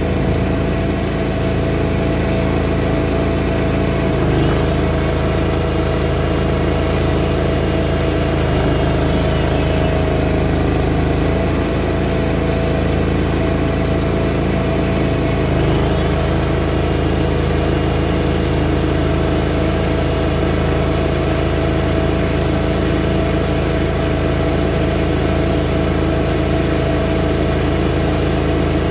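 Greens mower engine running steadily at a constant speed, its note dipping briefly a few times.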